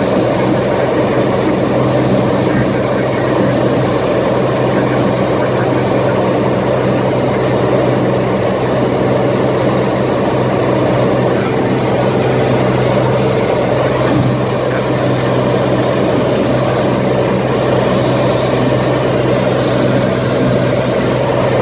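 Cessna TTX's turbocharged six-cylinder piston engine and propeller in steady flight, heard as a constant drone inside the cabin with a low hum that holds its pitch.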